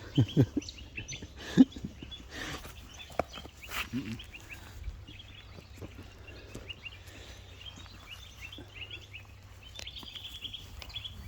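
Small birds chirping in the background, with a few sharp knocks and rustles in the first four seconds.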